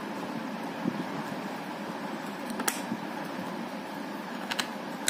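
A few small plastic clicks and taps as a helmet visor is fitted onto its side pivot mount and the mount is tightened, the loudest about halfway through and a quick pair near the end, over a steady fan hum.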